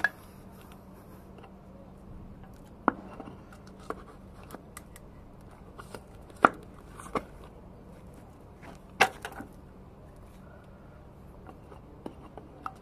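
Scattered sharp clicks and knocks of parts and tools being handled while working on a bus brake servo, the loudest three near three, six and a half and nine seconds in, over a faint steady hum.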